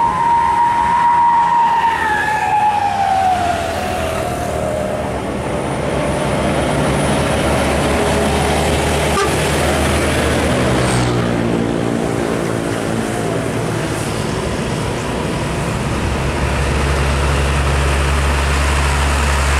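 Heavy diesel trucks driving past on a highway. In the first few seconds a loud siren-like horn tone slides steadily down in pitch. Near the end a truck's engine drones low and steady as it passes close.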